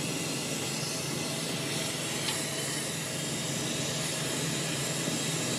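Oxy-fuel brazing torch with a Captain Hook wrap-around tip, its flame burning with a steady hiss as it heats a copper refrigerant joint on a compressor for brazing.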